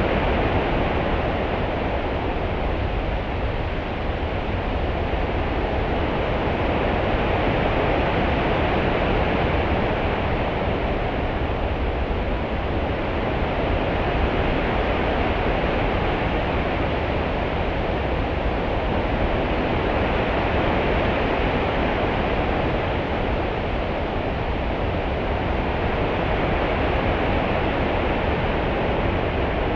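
Open-sea water ambience: a continuous rushing wash with a low rumble underneath, swelling and easing gently every several seconds.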